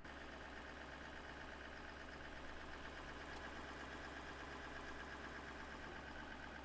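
Car engine idling steadily: a low hum with a faint pulsing whine above it, starting abruptly at the cut.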